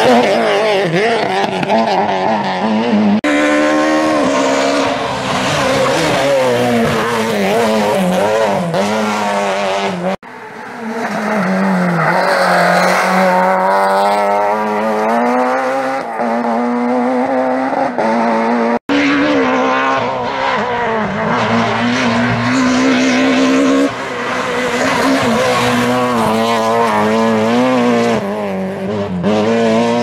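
Peugeot 307 F2000 rally car's engine revving hard through gear changes, pitch climbing and dropping as it passes, in several short passes joined by sudden cuts; tyres squeal at times in the corners.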